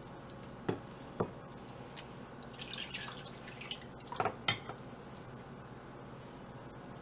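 Light knocks and clinks of a spoon and bowl against a stainless steel pot and the counter, with brief sloshing of thin liquid as rice water is mixed into an okra curry. The two knocks close together about four seconds in are the loudest.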